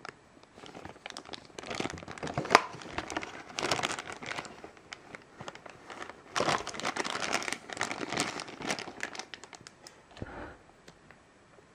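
Thin clear plastic bag crinkling in irregular bursts as it is handled and pressed around a toy figure, with one sharp crackle about two and a half seconds in. The crinkling stops shortly before the end.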